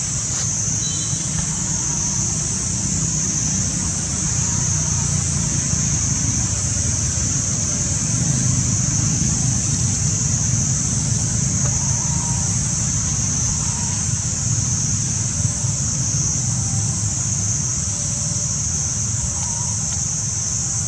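Steady outdoor ambience: a continuous high-pitched drone over a low rumble, with a few faint short chirps, one about a second in.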